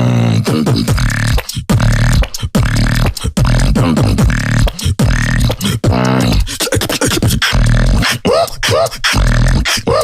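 Solo beatboxing: mouth-made kick and snare hits in a fast, steady rhythm over a deep held bass tone. Sliding, rising pitch sweeps come in during the second half.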